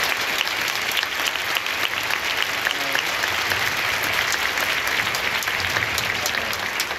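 A large stadium crowd of football supporters applauding steadily, many hands clapping at once.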